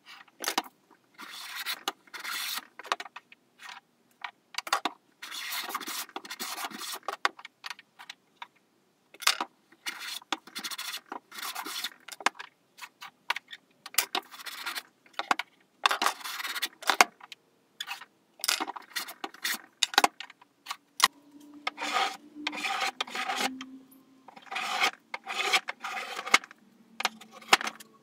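Hand plane shaving a wooden canoe frame in a long series of rasping strokes, each under a second or two long with short pauses between, as the edge is bevelled.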